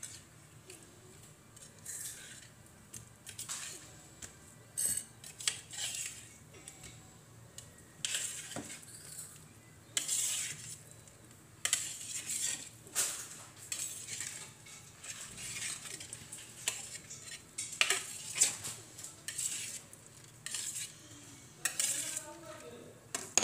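A metal utensil scraping and clinking against a stainless steel tray in many short, irregular strokes as cubes of set mango jelly are cut loose and lifted out.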